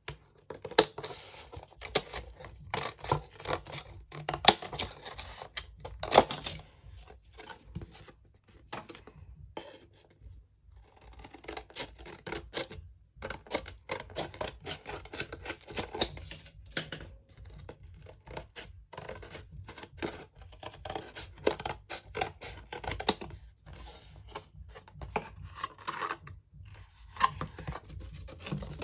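Cardboard packaging and paper being handled and cut: irregular scratching, scraping and clicking, with a short pause about ten seconds in.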